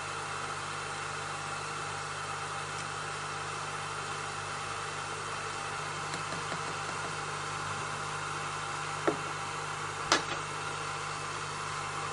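Steady hum of a hot gas rework station running, with two sharp clicks about a second apart near the end as the metal reballing fixture and tweezers are handled.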